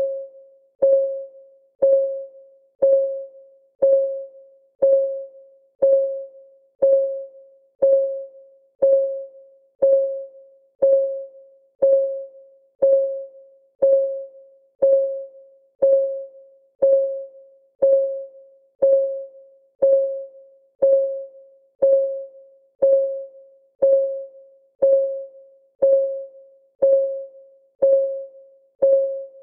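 Countdown timer's clock-ticking sound effect: one tick a second, steady and even. Each tick is a sharp click with a short ringing note that dies away quickly.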